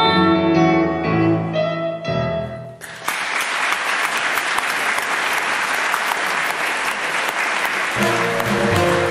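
A song ends on held final notes, and about three seconds in an audience starts applauding. Near the end, music comes back in under the continuing applause.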